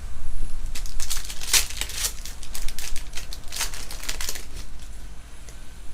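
Rustling, crinkling and flicking of trading cards and their packaging being handled, in two bursts about a second in and again after three and a half seconds, over a steady low hum.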